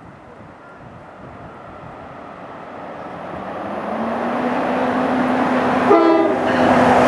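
A diesel commuter train approaching, its rumble growing steadily louder, with a short horn blast near the end.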